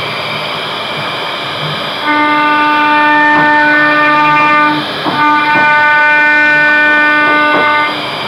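CNC router carving a wooden panel with a ball-nose bit: steady spindle and cutting noise, joined about two seconds in by a loud droning whine from the machine. The whine breaks off briefly in the middle and stops near the end.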